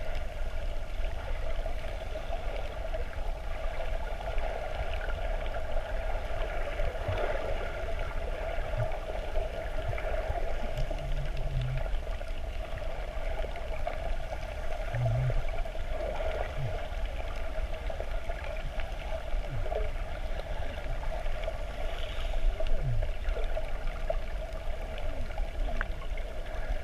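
Muffled underwater sound from a camera held just below the sea surface: water sloshing and gurgling over a steady hum.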